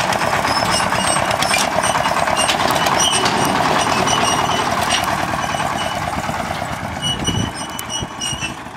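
Small farm tractor engine running with a rapid, even train of firing pulses, with light clicks and rattles over it. It grows fainter over the last few seconds as the tractor pulls away.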